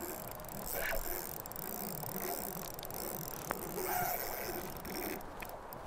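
Spinning reel being cranked to retrieve a lure, over the steady rush of shallow river water.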